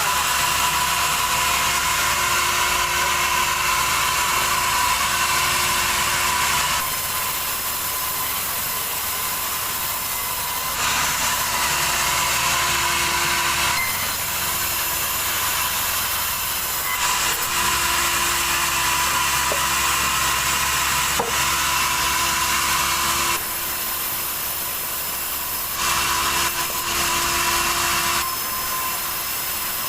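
Sawmill saw cutting through a log, a dense high-pitched whine and rasp that swells and eases in stretches of a few seconds as the cut goes on.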